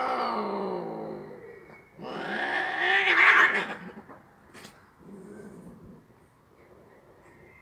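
Siamese cats yowling during mating. A long, drawn-out yowl falls in pitch and fades in the first second and a half, then a second loud yowl rises and falls, then a fainter short call comes about five seconds in.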